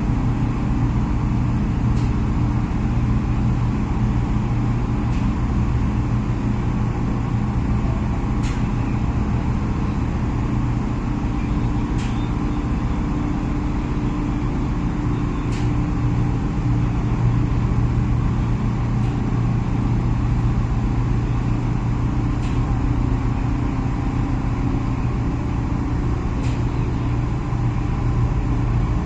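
Tugboat's diesel engine running steadily, a low, even drone.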